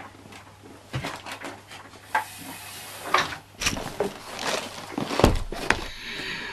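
Someone rummaging about: a string of knocks, clicks and rustles as things are shifted and a clear plastic storage box is handled, with one heavier thump about five seconds in.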